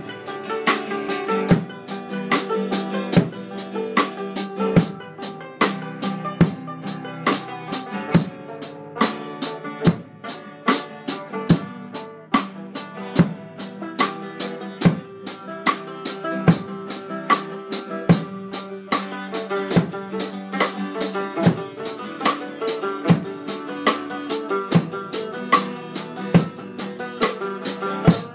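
Acoustic guitar strummed along with a drum kit playing a steady rock beat: regular bass drum and snare hits with cymbals over sustained guitar chords.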